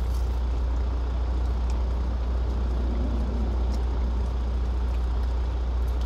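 Steady low rumble of an idling truck engine, heard inside the cab, with a few faint soft clicks over it.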